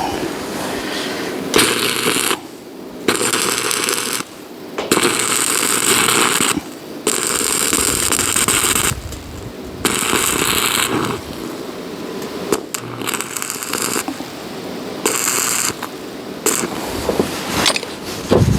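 Electric arc welding: the arc crackles and sizzles in runs of about one to two seconds, stopping and starting again after short pauses.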